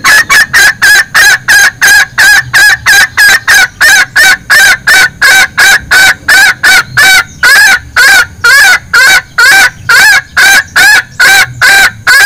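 Female junglefowl's 'bekikuk' clucking call, used as a lure to call in males: short, loud, evenly spaced notes, about three a second, with no pause.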